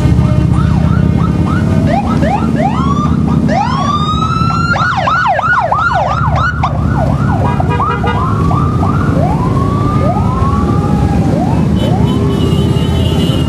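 Police motorcycle sirens sounding over the rumble of motorcycle engines. The siren runs through repeated rising whoops, fastest at several a second in the middle, slower and longer near the end.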